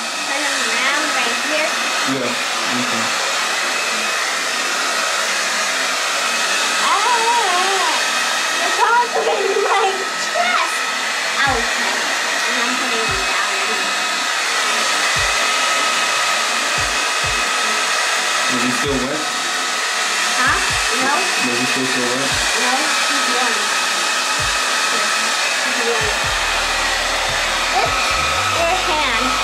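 Handheld electric hair dryer running steadily, blowing air to dry a wet puppy's coat: a continuous rush of air with a steady hum from its motor.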